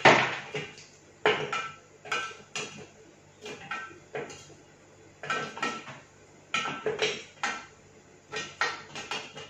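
Sticks of filled red licorice dropped by hand into a Thermomix's stainless steel mixing bowl, landing in a string of irregular taps, each with a short metallic ring.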